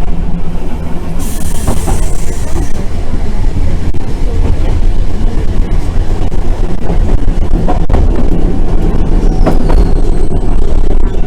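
Randen tram running along the track, heard from inside the car: a steady low rumble of motors and wheels, with a brief hiss about a second in and a short high squeal falling in pitch near the end.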